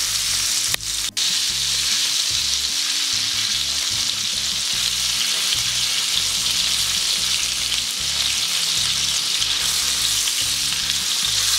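Trout fillet frying in olive oil and melting butter in a non-stick pan, giving a steady sizzle. The sizzle drops out briefly twice about a second in.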